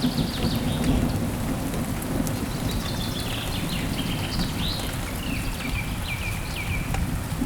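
Steady heavy rain with a low rumble underneath. A bird calls over it: faint chirps near the start, then from about three seconds in a quick series of short chirps that steps lower in pitch.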